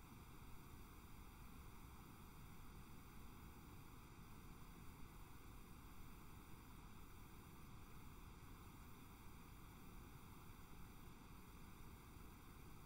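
Near silence: a faint, steady hiss of recording noise with no other sound.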